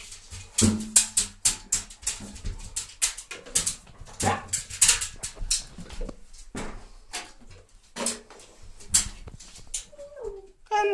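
Cocker spaniel moving about in a bath of shallow soapy water: a run of short splashes and scrabbles, with a brief whine about a second before the end.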